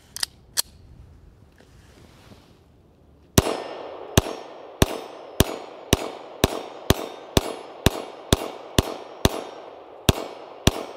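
Norinco 213A 9mm pistol firing a string of fourteen shots, about two a second, each shot echoing briefly. It empties the whole double-stack magazine without a stoppage. Two sharp clicks come just before the shooting, about three seconds earlier.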